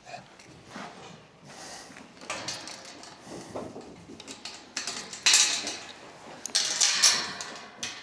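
Grain poured into metal feed pans: rattling, rushing bursts, the two loudest about five and seven seconds in.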